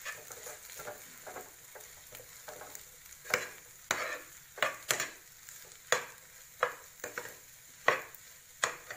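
A spatula stirs and scrapes mashed-potato filling around a frying pan over a faint sizzle. Sharp knocks and scrapes of the spatula against the pan come irregularly, and more often and louder in the second half.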